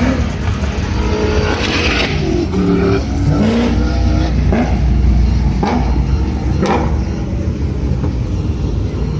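Cars in a roll race accelerating hard, their engines revving up with the pitch climbing several times, as at gear changes.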